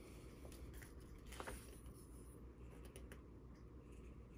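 Near silence: room tone with a low hum and a few faint, scattered clicks.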